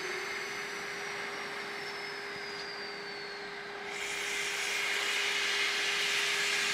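Narrow-gauge steam locomotive 99 749 with a steady whistle note held throughout. About four seconds in, a loud hiss of steam starts as the cylinder drain cocks blow off at the front of the engine.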